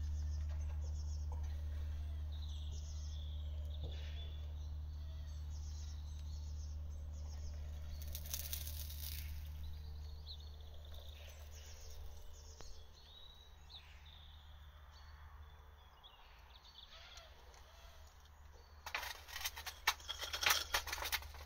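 A low steady rumble fades away over the first half while small birds chirp. Near the end come a series of metallic clanks and scrapes as a hot steel crucible is gripped and handled with tongs.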